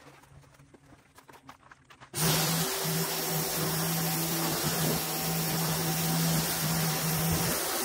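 Faint scrubbing clicks, then about two seconds in a pressure washer starts up: a steady hum from its pump with a loud, even hiss of the water jet spraying the tractor's cab.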